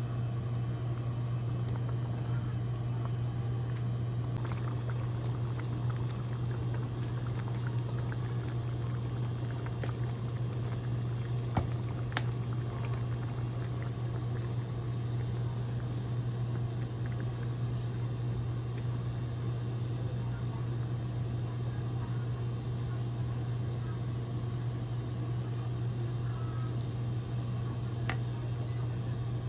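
Thick meat sauce simmering in a frying pan while a plastic spoon stirs it, with a couple of sharp clicks of the spoon. A steady low hum runs underneath throughout.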